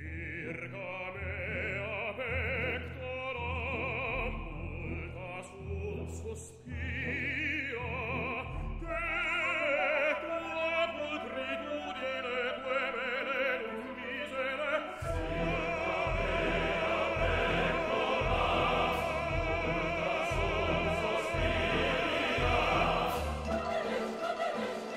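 Background music: a classical, opera-style piece with a sung vocal line over orchestra. The music dips briefly about six seconds in and grows fuller, with a deeper bass, from about fifteen seconds in.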